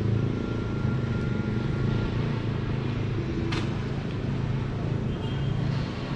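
Steady low rumble of motor vehicle engines on a city street, with one brief sharp click about three and a half seconds in.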